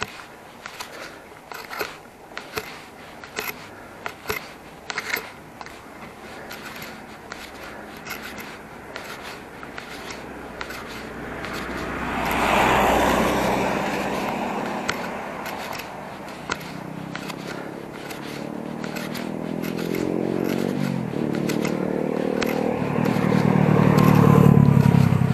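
Bicycle freewheel ticking in quick irregular clicks while coasting. About halfway through, a motor vehicle swells past. In the last few seconds an engine climbs in pitch in steps and grows loud near the end.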